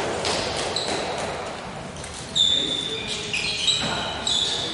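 Basketball shoes squeaking on a hardwood court: a string of short, high squeaks at varying pitches, with a sudden louder one about two and a half seconds in, over the hubbub of the gym.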